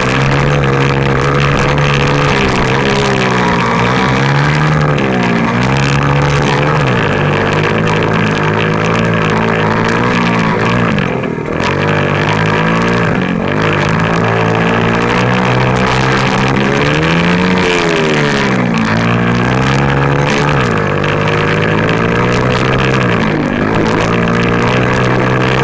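50cc pit bike engine heard from on board the bike, revving up and falling back over and over as the rider works the throttle around the track. About eleven seconds in, the throttle comes off briefly before the engine picks up again.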